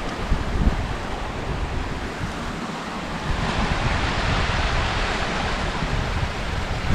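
Wind buffeting the camera microphone in irregular low gusts, over a steady rushing hiss that grows louder a little past halfway.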